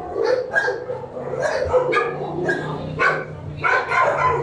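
Shelter dogs in kennels barking over and over, short barks coming several times a second. A low steady hum sits underneath from about a second in.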